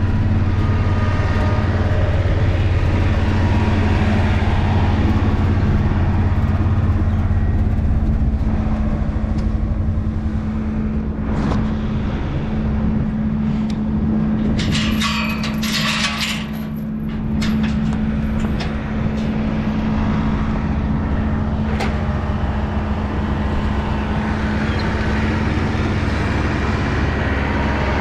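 Vehicle engine running steadily, its low hum shifting in pitch about eight seconds in. A brief metallic clatter about halfway through lasts roughly two seconds.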